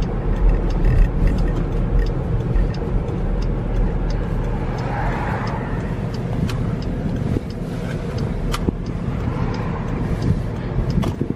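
Car cabin noise while driving slowly: a steady low engine and road rumble, with a few sharp clicks.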